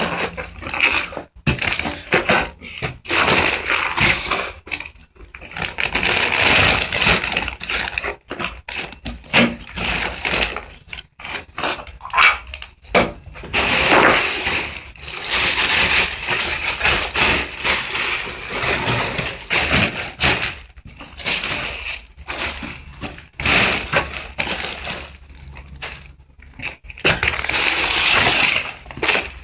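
Irregular crunching and rustling noise, coming and going in uneven bursts with brief gaps.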